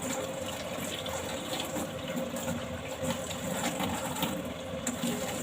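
Tap water running steadily into a sink while fresh ginger is washed under it, with a few faint clicks of handling.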